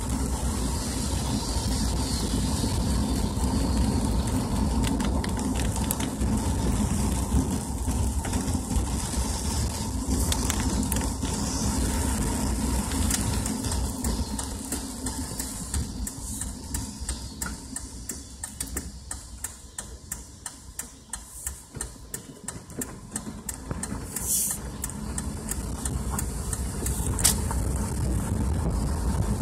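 Car driving on a wet road, heard from inside the cabin: a steady low rumble of engine and tyres that quietens around the middle and picks up again near the end, with many short sharp ticks in the second half.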